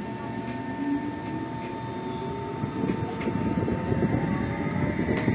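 Interior running sound of a Tokyo Metro 05 series chopper-controlled electric train, car 05-802, accelerating. The traction motor hum rises in pitch and grows louder over a steady high whine, with one sharp click near the end.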